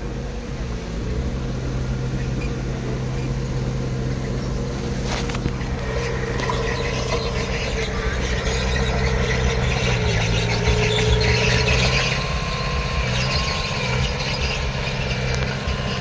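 Crawler bulldozer's diesel engine running steadily under load, with a high squeal that wavers in pitch over it and is loudest about two-thirds of the way through.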